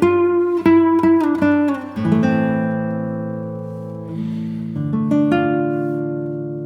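Background music on acoustic guitar: a quick run of plucked notes, then chords left ringing and slowly fading.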